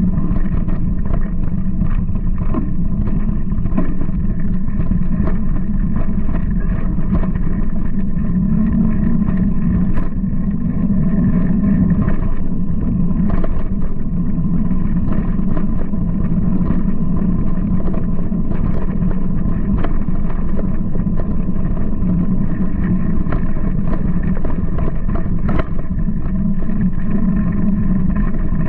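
Mountain bike (a Giant Talon) rolling down a rough dirt trail, heard through a ride-mounted camera: a steady low rumble of wind and tyre noise on the microphone with frequent small clicks and rattles from the bike over the bumps.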